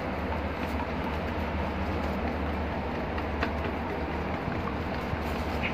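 Tint brush stirring hair dye in a plastic bowl, with a few faint clicks of the brush against the bowl, over a steady low rumbling background noise.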